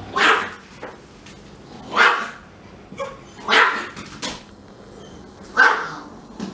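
A Pomeranian barking at a husky: about five sharp, high barks, spaced a second or two apart, with a few fainter yaps between.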